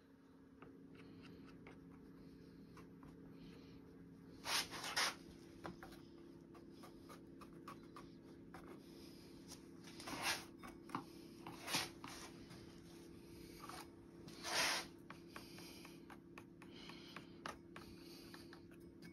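A thin wooden stick scraping and dragging through epoxy resin against a plastic mold, in a few short strokes, over a steady low hum.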